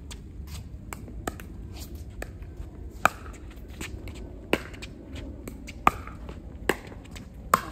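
Pickleball paddles hitting a plastic ball in a rally: five sharp pops, each with a brief ring, the last three coming faster, under a second apart. Fainter ticks fall between them.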